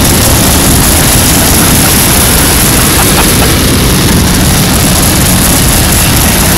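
Amusement-park spinning ride running at speed: a loud, steady rumble and rush of noise with no let-up.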